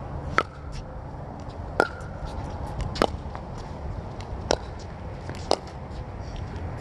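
Pickleball rally: paddles hitting the plastic ball back and forth, five sharp pops about one to one and a half seconds apart, with fainter ticks between them.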